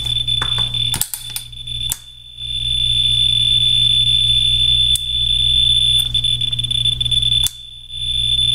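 Ludlum Model 12 survey meter's audio speaker giving a steady high-pitched buzz as the 44-2 scintillation probe counts radiation at a high rate. The buzz drops out briefly about two seconds in and again near the end.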